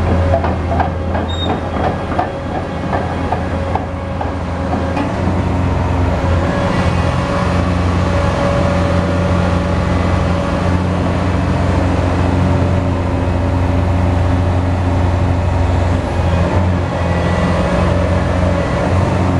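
Hitachi EX1200 excavator running under steady load, its heavy diesel engine humming low with a faint steady whine above it. For the first few seconds a quick, regular metallic clatter of about four knocks a second is heard over the engine.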